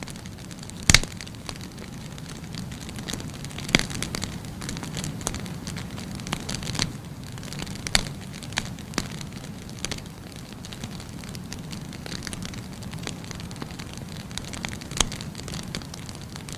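Bonfire of firewood burning: a steady low rush of flame with scattered sharp crackles and pops, the loudest pops about a second in, near four seconds, near eight seconds and near fifteen seconds.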